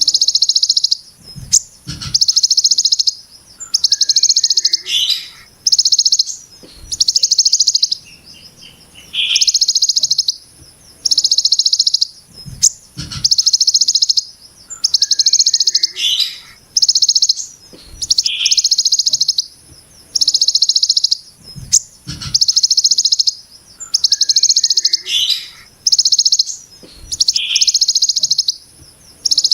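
Kolibri ninja sunbird singing, repeating a harsh, dense, high buzzing 'brem' phrase in the style of the ciblek gunung about every one and a half to two seconds, with short lower notes and small twitters between the bursts. A faint steady high hiss sits under the song.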